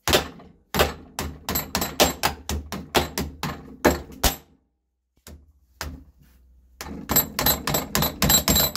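Rapid hammer blows, about five a second, on a flexible TPU 3D-printed RC car A-arm clamped in a steel bench vise: a burst of about four seconds, a short pause, then a second burst near the end whose blows ring with a high metallic note. The flexible part takes the blows without breaking.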